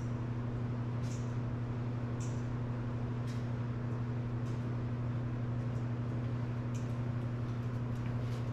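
Steady low hum of the workshop's background, with a few faint light ticks scattered through it.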